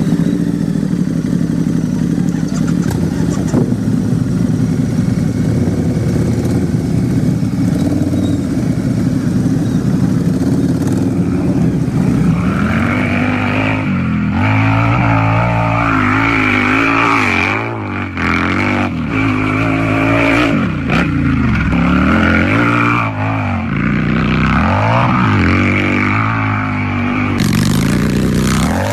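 Harley-Davidson V-twin motorcycle engine idling steadily, then revved again and again from about halfway through, its pitch rising and falling with each twist of the throttle.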